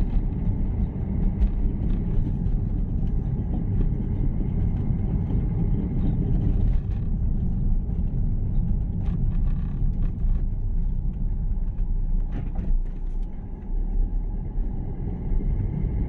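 Steady low rumble of a vehicle driving along a road, with engine and road noise and a few faint knocks.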